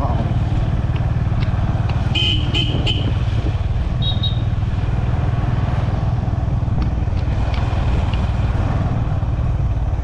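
Motorcycle engine running steadily while riding, under a constant low rumble of engine and wind. A brief high-pitched beep sounds about two seconds in.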